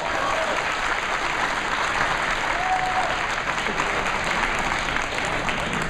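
Crowd applauding steadily for the two fighters, easing off slightly near the end.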